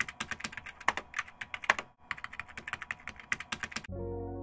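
Keyboard typing sound effect: rapid keystroke clicks with a short pause about halfway through. Near the end the typing stops and a soft sustained musical chord comes in and fades.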